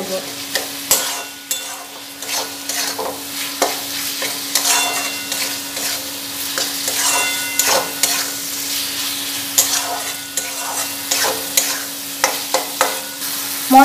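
A metal spatula repeatedly scraping and stirring a thick spice masala of onion, capsicum and tomato frying in a metal kadai, with sizzling: the masala being sautéed down (koshano). Irregular scrapes over a steady low hum.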